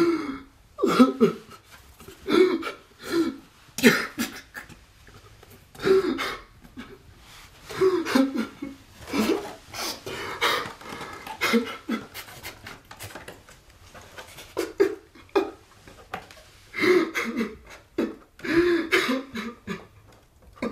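A person's voice in short, uneven vocal bursts, a second or two apart, with no clear words.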